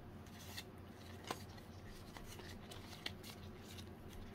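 Faint handling of Pokémon trading cards: soft rubs and a few sharp clicks as cards are slid and flicked through, the sharpest about a second in and again near three seconds, over a low steady hum.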